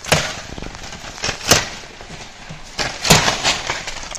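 Sharp chops of a hand blade hacking at a green sapling, about three strong strokes a second or so apart, with leaves and branches rustling between them.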